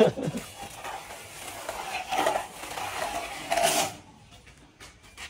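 Metal straightedge knocking and scraping against fresh cement render: a sharp knock at the start, then two short rasping scrapes, the louder just before four seconds in.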